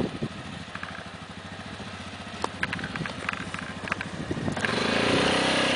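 ATV engine running with a fast, even firing pulse, swelling louder near the end. A few light clicks come in the middle.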